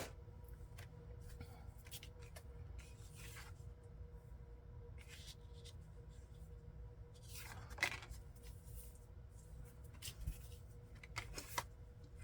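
Paper scraps being handled and shuffled on a craft table: scattered soft rustles and light taps, with sharper clicks near the start, about eight seconds in and near the end, over a faint steady hum.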